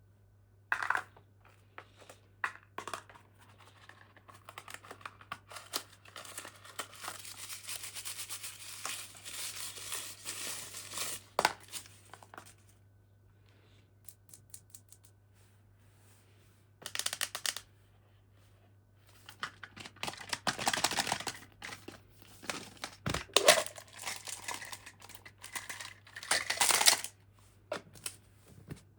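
Toy packaging being torn open and crinkled by hand, in irregular bursts of rustling and sharp clicks with two quiet pauses.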